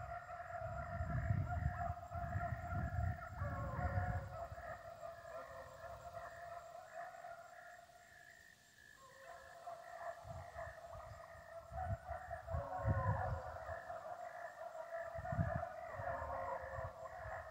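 Pack of beagles baying on a rabbit's track, a continuous chorus of overlapping bays that thins out briefly about halfway through and then picks back up. Low rumbles on the microphone come and go.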